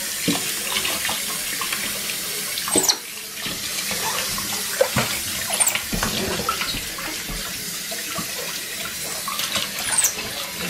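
Kitchen faucet running steadily into a stainless steel sink, the stream splashing over a wet capuchin monkey being rinsed. Three brief high squeaks that fall in pitch are heard about three, six and ten seconds in.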